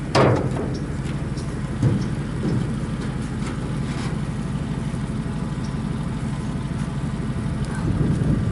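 Pickup truck engine idling steadily, with a sharp knock just after the start and a smaller one about two seconds in.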